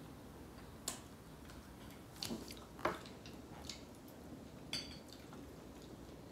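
Faint wet eating sounds from ripe mango being bitten and handled with the fingers: about five short smacks and squishes scattered through the middle, over low room tone.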